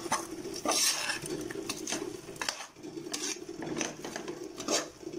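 Metal ladle scraping and clinking against the inside of an aluminium pressure cooker in irregular strokes, stirring chicken with onion, tomato and masala powders.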